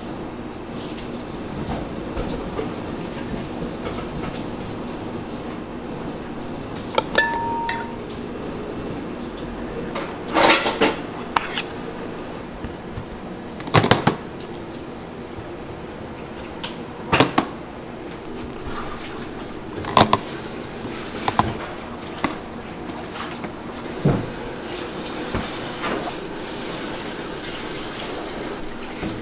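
A spatula spreads and scoops buttercream, with soft scraping and a sharp knock every few seconds as it taps against the cups, over a steady low room hum.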